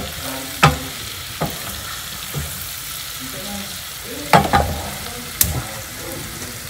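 Garlic frying in butter in a pan, a steady sizzle, with a few sharp knocks of a utensil against the pan, the loudest a cluster about four seconds in.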